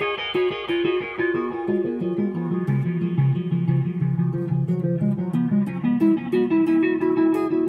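Electric guitar picking a flowing run of notes through two delays set to different repeat times, the echoes overlapping into a dense cascade over a held note.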